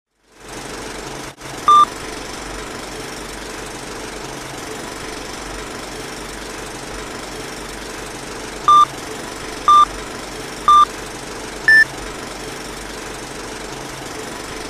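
Old-film countdown leader sound effect: a steady projector-style clatter and hiss starting about half a second in. Short beeps sound over it, one about two seconds in, then three a second apart near the middle, and a fourth at a higher pitch a second after them.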